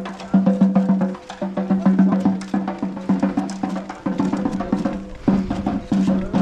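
Music with a fast, steady beat over a held low drone, the beat breaking off briefly a few times.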